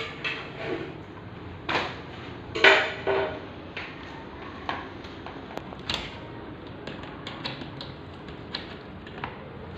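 Irregular clicks, knocks and short rustles of a printer and its packaging being handled, with the loudest knocks about two and three seconds in, then lighter ticks.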